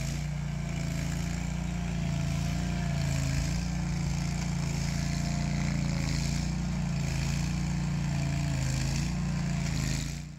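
Toro STX 26 stump grinder's gas engine running steadily while the machine drives and turns on its rubber tracks, its pitch swelling slightly now and then. The sound cuts off just before the end.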